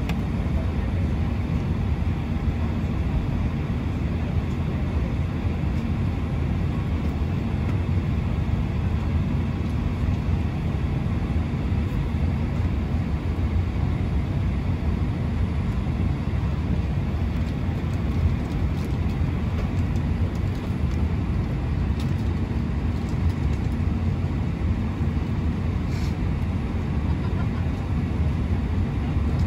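Steady low drone inside the cabin of an Airbus A319 on the ground, heard from a window seat, with one faint click near the end.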